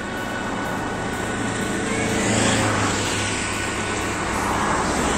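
Diesel engine of a Pilote integrated motorhome running as it drives slowly forward, its sound swelling a little about halfway through.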